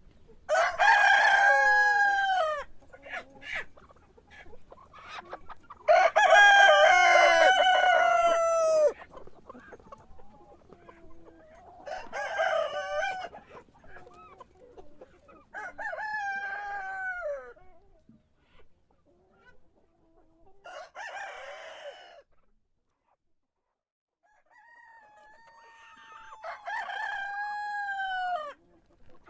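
Roosters crowing again and again, six crows in all. The first two are loud and long, and the later ones are fainter, with a last fuller crow near the end.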